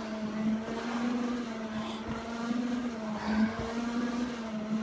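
Stair-climbing machine's motor humming steadily, swelling and easing about once a second in time with the climber's steps.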